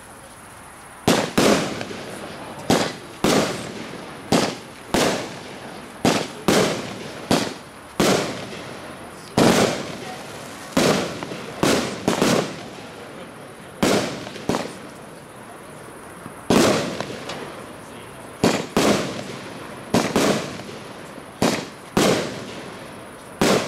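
A 30 mm consumer firework battery firing shot after shot: a rapid series of sharp bangs, about one to two a second, each fading away after it, as comets launch and burst into stars. It starts about a second in and keeps going.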